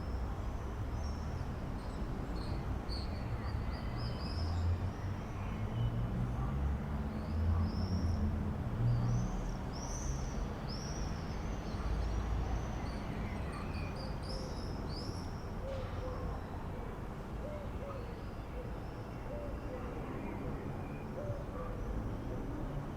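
Wild birds singing: many short, high, arching chirps come thick and fast in the first half, and softer, lower repeated notes follow in the second half, over a steady low rumble.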